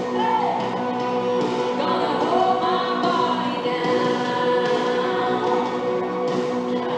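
Gospel-style worship music with choir voices singing over sustained chords.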